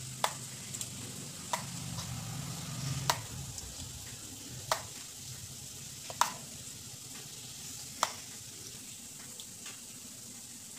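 A spoon clinking sharply against a steel bowl and plate about six times, a second or two apart, as curd is poured and green chutney spooned onto the dish, over a steady hiss.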